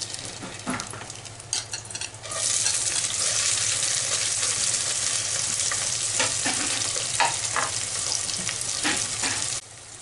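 Whole spices sizzling in hot mustard oil in an aluminium pressure cooker. About two seconds in, sliced onions go in and fry with a steady sizzle, with a few knocks of a metal slotted spatula against the pot. The sizzle cuts off suddenly near the end.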